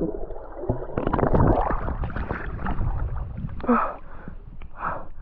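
Lake water sloshing and splashing around a swimmer who has just gone into cold water, in irregular surges over a low rumble, the strongest about a second in.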